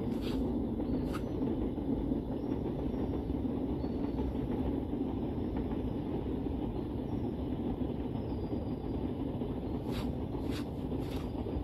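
Steady low rumble of outdoor background noise, with a few faint sharp taps, one near the start and three near the end.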